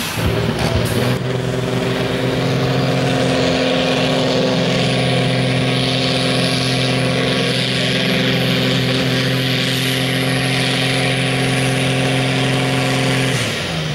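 Tractor diesel engine held at steady high revs while pulling a weight sled, with a faint high whine rising and falling above it. The sound cuts off abruptly near the end.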